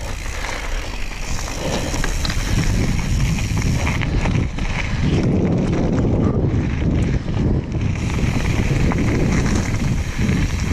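Mountain bike riding fast down a dirt trail: tyre and frame noise with scattered rattles, and wind buffeting the microphone, heaviest from about five to eight seconds in.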